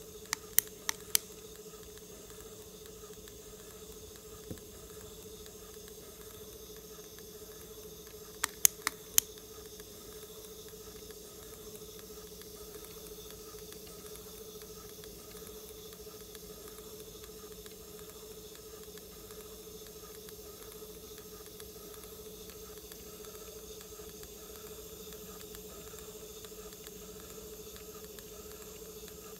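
Grundig CB 100/E cassette tape drive running with an opened cassette: a steady motor hum over hiss. Twice comes a quick run of four sharp clicks, once right at the start and again about eight seconds later.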